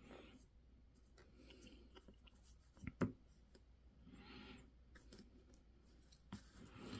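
Faint clicking and scraping of small, hard 3D-printed plastic parts being handled and trimmed, with one sharp click about three seconds in.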